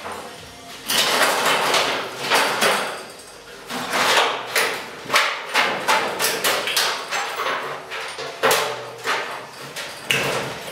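Angle grinder cutting through old truck-body sheet metal in short, irregular bites, with sharp metallic knocks and clatter between them.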